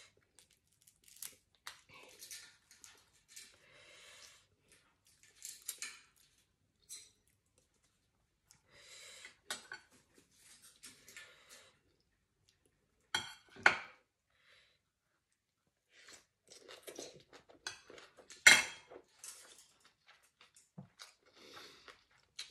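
Eating at the table: soft chewing and mouth noises, with scattered clinks of a metal spoon against ceramic plates and a bowl. A couple of sharper, louder clinks come a little past halfway and again about three-quarters of the way through.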